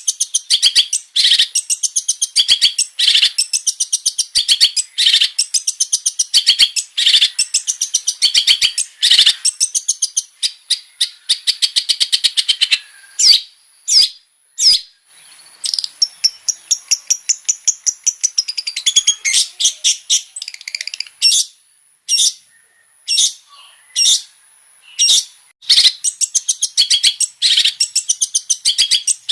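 Long-tailed shrike singing a fast, scratchy chattering song with varied mimicked notes. About halfway through, the song thins to separate sharp calls and short trills, then the dense chattering picks up again near the end.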